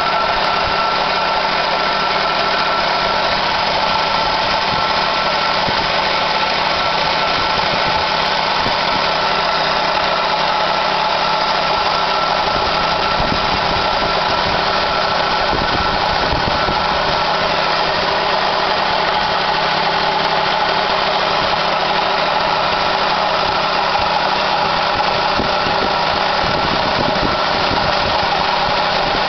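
Honda Civic LX engine idling, heard close up in the engine bay by the AC compressor: a steady running noise with a constant high whine over it, which the owner fears is the sign of a bad AC compressor or fan clutch.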